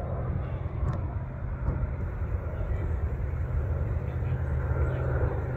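Aircraft engine running steadily: a continuous low rumble with an even, unchanging pitch.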